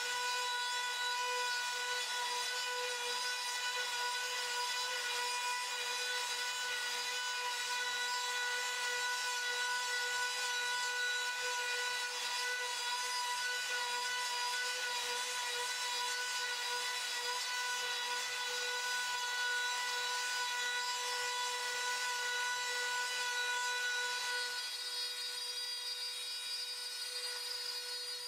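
CNC router's Makita trim-router spindle running with a steady high whine while its bit cuts a 14 mm deep relief into MDF, with the rasping noise of the cut. About 24 seconds in the cutting noise thins out while the spindle whine carries on.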